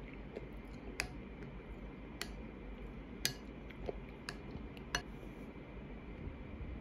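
A spoon clinking against a glass bowl, five light clinks spaced roughly a second apart, each with a brief ring, over a faint steady low hum.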